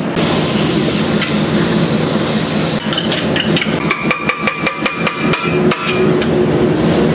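Moving freight train: a steady rumble, with a run of rapid metallic clanks and knocks from about three seconds in, lasting about three seconds, and a high ringing tone over them.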